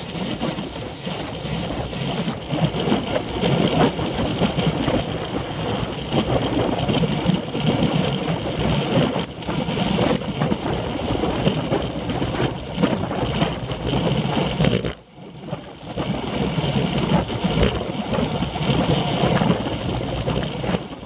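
Wind rushing over the microphone of a camera mounted on a moving road bike, with rumbling road and tyre noise and small knocks from the bike. The noise drops out sharply for about a second roughly three quarters of the way through.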